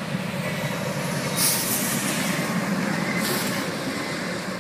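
A train rumbling along the tracks close by, growing louder, with two brief hissing bursts partway through.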